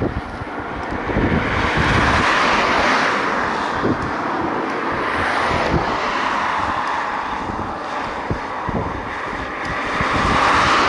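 A Taiwan Railway Chu-Kuang express passenger train running past: a steady rush of wheels on rails that swells about two seconds in and again near the end, with irregular low thumps underneath.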